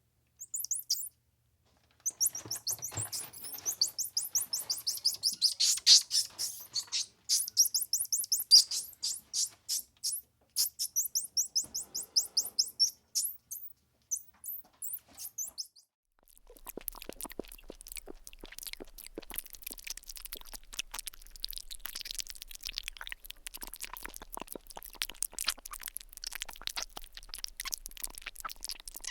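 Small pet bird chirping and twittering in quick, high runs for the first half. About halfway through the chirps stop, giving way to a quieter, steady run of fast ticks and scratches.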